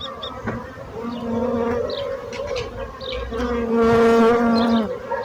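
Bees buzzing, several at once. One flies close past for about a second and a half past the middle: its buzz is louder, then drops in pitch and fades.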